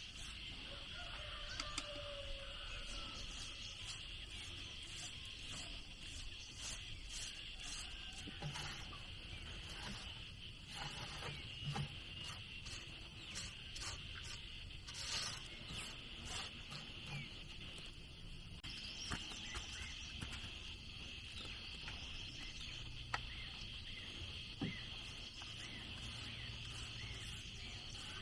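Steady high-pitched insect chorus, with irregular knocks and taps scattered over it.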